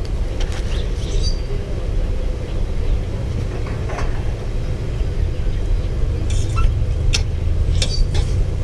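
A steady low rumble, with a few light metal clinks near the end as a fork stirs in a stainless steel pot on a camp stove.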